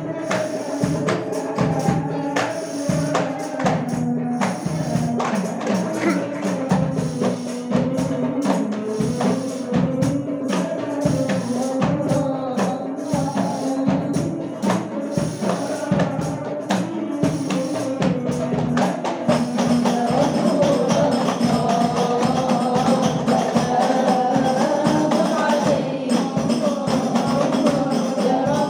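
Hadroh ensemble of frame drums (rebana) playing a quick, busy rhythm of many strokes; about two-thirds of the way through, the drumming thins and group singing of sholawat comes to the front.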